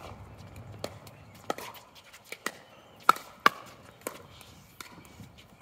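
Pickleball rally: paddles striking the hollow plastic ball in a quick exchange of sharp pops, roughly one or two a second. The two loudest hits come close together a little after three seconds in.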